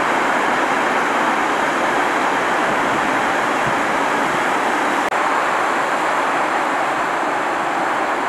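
Steady roar of breaking sea surf, an even rushing noise with no single wave standing out, broken by a momentary gap about five seconds in.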